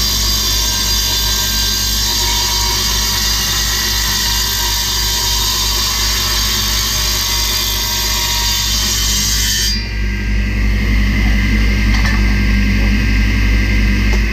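An electric power tool running steadily while working wood, with a steady hum under a bright hiss. About ten seconds in the high hiss cuts off abruptly and the lower hum carries on.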